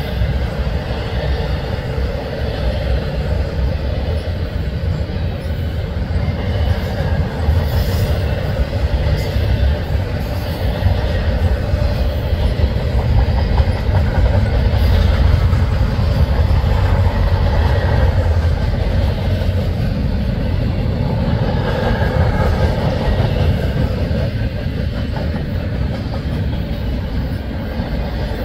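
Cars of a Canadian National autorack and double-stack freight train rolling past steadily: a continuous heavy rumble of steel wheels on rail.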